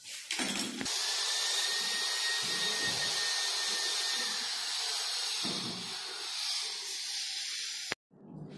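A steady hiss starts about a second in and cuts off abruptly near the end, with a few soft low thuds under it.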